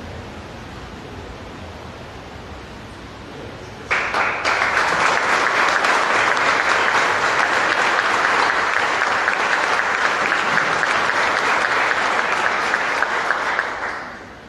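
Audience applauding, breaking out suddenly about four seconds in and dying away near the end; before it, only low room noise.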